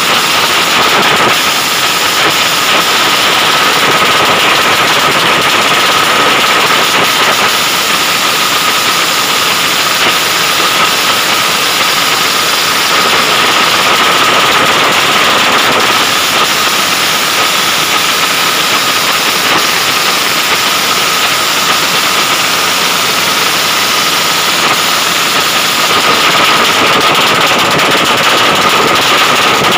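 Modified racing motorcycles' engines with short open exhausts running, a loud unbroken engine racket with a steady high note.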